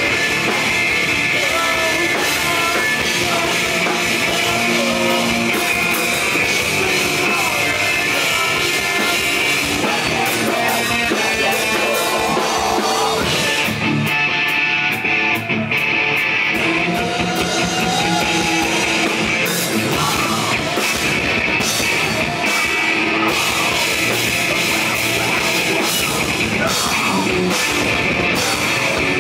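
Live rock band playing loud: electric guitars and drum kit with a lead vocalist singing over them.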